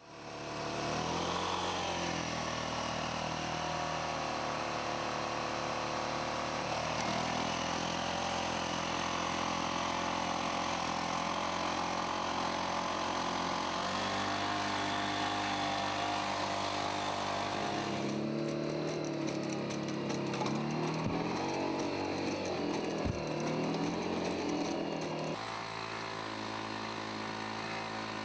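Boston Dynamics LS3 walking robot's onboard engine and hydraulic power unit running in a loud, steady drone, its pitch rising and falling as it works. The sound changes abruptly a few times, about halfway through, later on and near the end.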